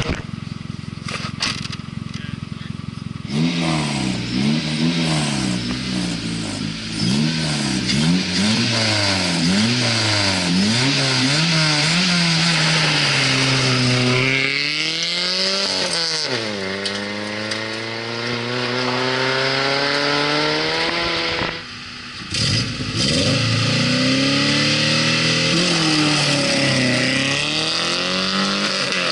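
Two-wheel-drive rally car's engine revved up and down about once a second while held at the start line, then a long rising rev as it launches and pulls away. After a short drop in level, another rally car's engine runs and revs on the gravel stage.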